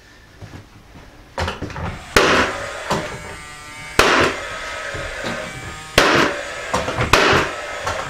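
Paslode gas-powered cordless angled finish nailer firing nails into a wooden desktop: about four sharp shots roughly two seconds apart, each followed by a brief whir from the tool's fan.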